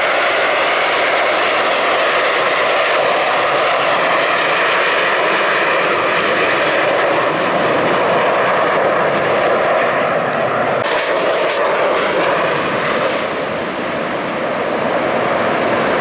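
Blue Angels F/A-18 Super Hornet jets passing overhead: a loud, steady jet roar that dips slightly near the end.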